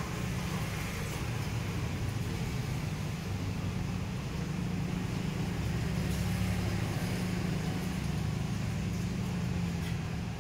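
A steady low engine rumble runs throughout, holding level the whole time, with a faint hiss over it.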